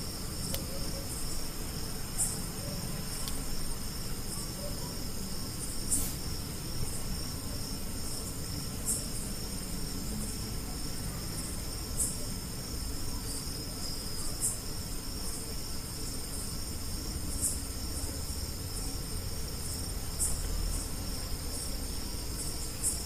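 Steady high-pitched insect chirring, with a short sharper chirp about every three seconds, over a low background rumble.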